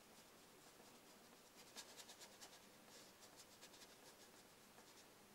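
Faint scratchy strokes of a flat paintbrush scrubbing acrylic paint onto a primed board. A quick run of them comes from about two seconds in until nearly four seconds.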